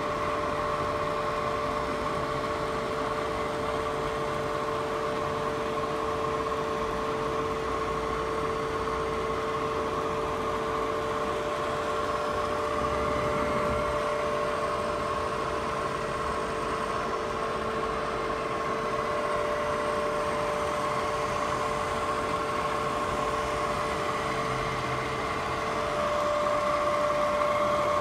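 Bridgeport Series 1 vertical milling machine running, a steady motor hum with several high steady whine tones. About two seconds before the end one of the tones drops out and the sound gets slightly louder.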